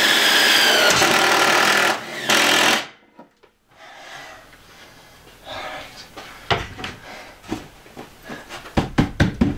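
Cordless drill running at full speed, driving a screw into the wood of an upper cabinet. It is one long run of about two and a half seconds with a brief pause and a short second burst. It is followed later by scattered clicks and knocks of tools being handled against the wood, the loudest near the end.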